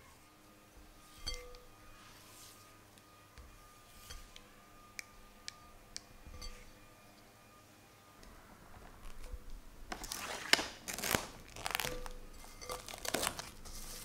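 Silicone spatula stirring thick chocolate ganache in a glass bowl, soft and wet with a few light taps against the glass. About ten seconds in, plastic cling film crinkles loudly for several seconds as it is stretched over the bowl's rim.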